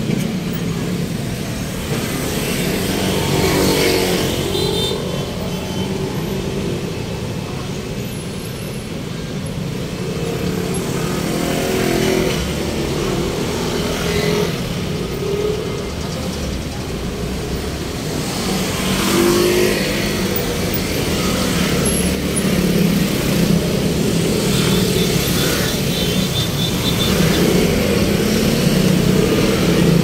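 Road traffic: motor vehicle engines running and passing, with engines revving at times.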